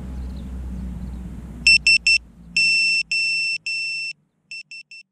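A downed FPV quad's piezo buzzer beeping. It sounds three short, three long and three short beeps, an SOS pattern, as a lost-model locator alarm. A low rumble fades away just before the beeping starts.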